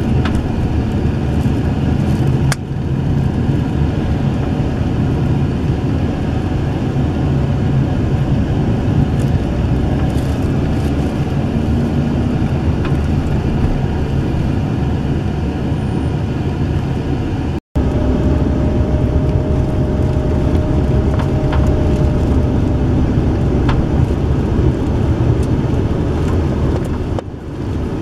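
Road and engine noise of a moving car heard from inside the cabin: a steady low rumble. It breaks off for a split second about two-thirds of the way through.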